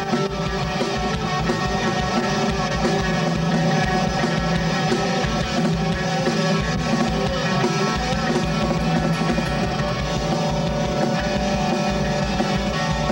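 A rock band playing: electric guitar, bass guitar and drum kit, with a regular beat.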